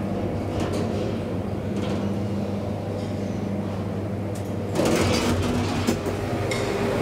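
Elevator car travelling in its shaft with a steady low hum. About five seconds in, a louder rushing noise sets in.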